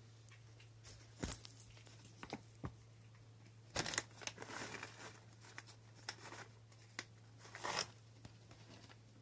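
Plastic cat-treat bag crinkling and rustling in several short bursts, the longest about four seconds in, over a low steady hum.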